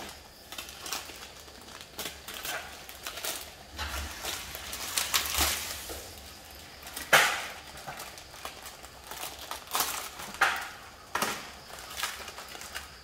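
Plastic packaging crinkling and rustling as instant-noodle sachets are torn open and handled over plastic trays, in irregular crackles with one sharper, louder crackle about seven seconds in.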